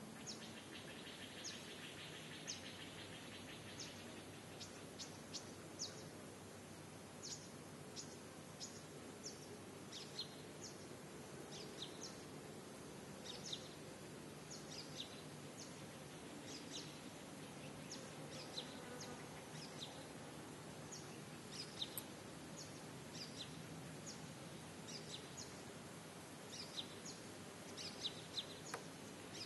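Small birds chirping in short, repeated downward chirps over a low, steady background noise, with a brief buzzing in the first few seconds.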